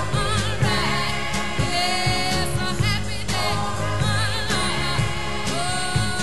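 1960s pop record playing: sung vocals with vibrato over a band with a steady bass.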